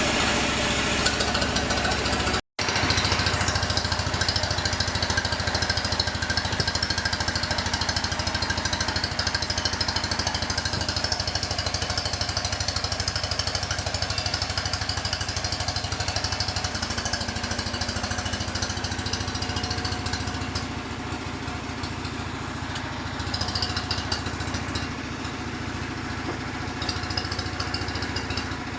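Sawmill machinery running steadily: an engine-like drone with a fast, even pulsing and a wash of high hiss. It breaks off for an instant about two and a half seconds in, and settles a little quieter after about twenty seconds.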